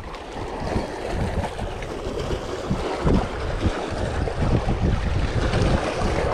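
Wind buffeting the microphone in uneven gusts over small waves splashing and lapping against jetty rocks.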